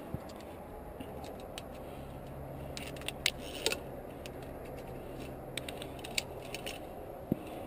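Metal clicks and jangling from a via ferrata lanyard's carabiners knocking on the steel safety cable and its anchor as a climber moves them along. The clicks come in two clusters, near the middle and again later, over a faint low hum.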